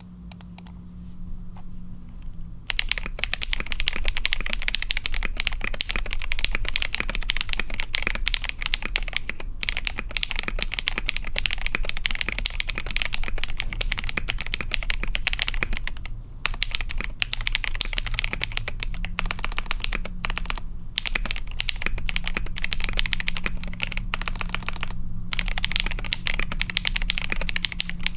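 Fast, continuous typing on a KBD67 Lite mechanical keyboard with lubed KTT Rose linear switches, a POM plate, KAT-profile keycaps, switch pads and polyfill dampening. A few separate keypresses come first, then steady fast typing starts a few seconds in, broken by a few brief pauses.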